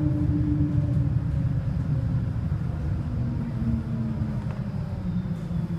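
City bus heard from inside the cabin while driving: a steady low rumble with a drive whine that falls slowly in pitch.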